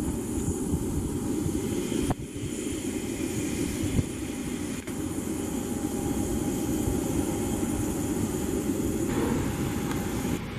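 Boeing 737-800 jet engines (CFM56-7B) running as the airliner taxis: a steady rumble with a faint high whine. The sound shifts abruptly a couple of times where clips are spliced together.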